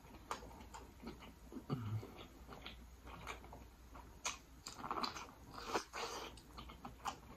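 Close-miked biting and chewing of sauce-dipped corn on the cob: a string of short, sharp crunches, wet clicks and lip smacks, with a brief low hum about two seconds in.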